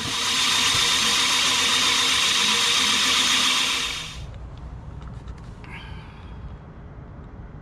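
Handheld power tool running under load as it cuts through the boat's wooden planking for a hawse hole: a steady, high whirr that stops after about four seconds.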